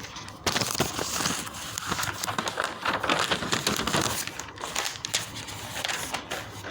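Crinkling, rustling noise close to the microphone: a dense run of crackles starting about half a second in and lasting about six seconds.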